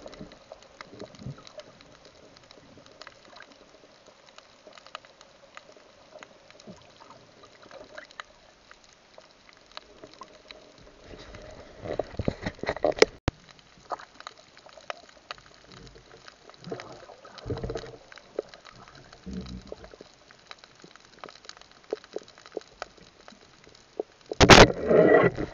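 Muffled underwater noise as a diver moves with a speared fish: a low hiss with scattered clicks, and louder rushes of water about twelve seconds in and again near the end, with one sharp click among the first.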